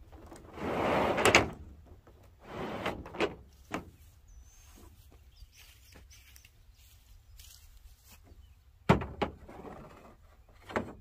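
A truck bed mat being slid across a pickup's bed floor, scraping in a few short pushes, the longest about a second in. A sharp knock comes about nine seconds in and a smaller one near the end.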